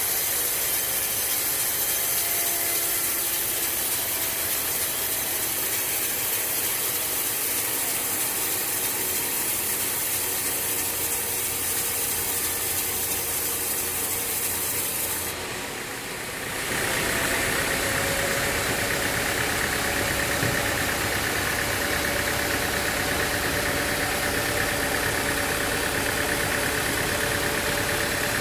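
Sawmill machinery running steadily, with a saw working through timber. About sixteen seconds in the sound dips briefly, then returns with a higher, grinding note.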